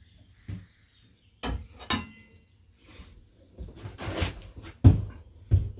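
Tools and tire knocking and scraping against a motorcycle wheel rim as a new tire's bead is levered on, with a ringing metallic clink about two seconds in and two heavy thumps near the end.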